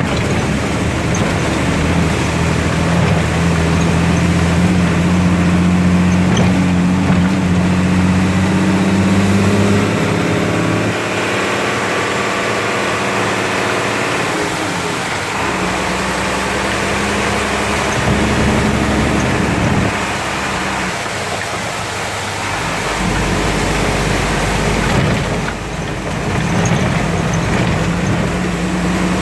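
A motor vehicle's engine running, its pitch shifting in steps every few seconds, over a steady hiss of heavy rain.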